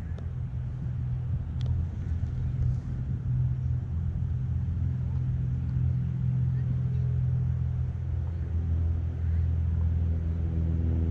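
Steady low rumble of a motor vehicle's engine running, with a deep hum that gains a few higher tones over the last few seconds.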